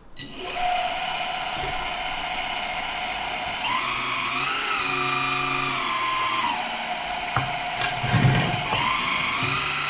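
Electric hydraulic pump of a 1/14-scale Premacon Liebherr R 956 RC excavator whining steadily while the boom and quick coupler are worked to pick up a bucket. Its pitch rises and falls a few times as the hydraulics take load, with a small click partway through.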